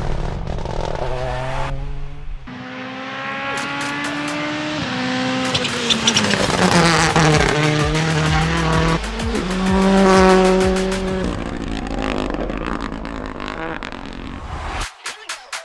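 Rally car engines at high revs, with the pitch holding, stepping and sliding down as cars pass, loud throughout.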